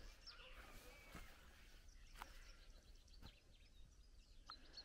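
Near silence: faint outdoor background with a few faint chirps and light clicks.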